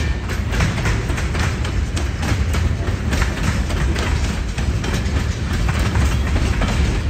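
Norfolk Southern freight train's tank cars rolling past, steel wheels clicking over the rails with a steady low rumble.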